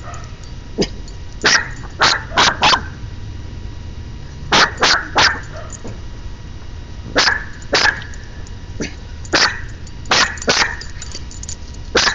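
Dog barking in quick runs of two to four short, sharp barks, a run every couple of seconds.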